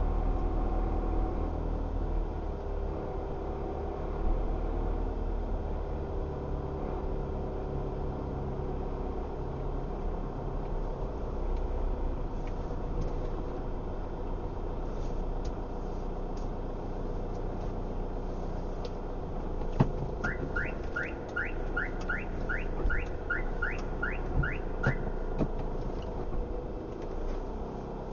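A car's engine and tyres rumbling steadily from inside the cabin as it drives slowly through a parking garage. About two-thirds of the way in there is a sharp click, followed by a run of about a dozen quick rising chirps, two or three a second, lasting about five seconds.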